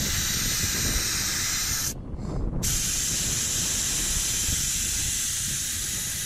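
Air hissing out of a large off-road tyre through a dial-gauge tyre deflator, stopping for about half a second about two seconds in and then starting again: the tyre is being aired down to low pressure for off-roading.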